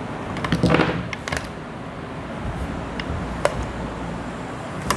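Hands handling an electric airsoft rifle's battery and plastic buttstock while fitting the battery: rustling and scraping about half a second to a second and a half in, then a few short, sharp plastic clicks.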